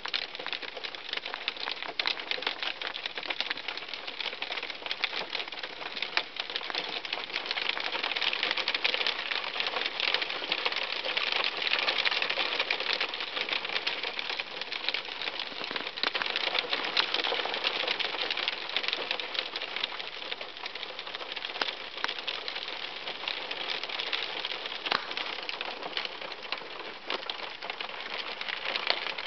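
Hailstones hitting a car's roof and windshield, heard from inside the car: a dense, rapid clatter of countless small ticks and raps. It grows louder for a stretch in the middle, then eases slightly.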